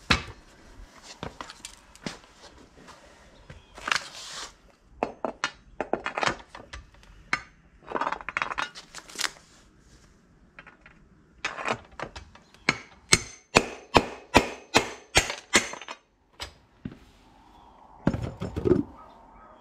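A steel rod being driven down through a solid-rubber mower wheel's hub to knock out the stock bushing: scattered sharp metal strikes, then a quick run of about a dozen strikes, two or three a second, a little past the middle. A short low rumble follows near the end.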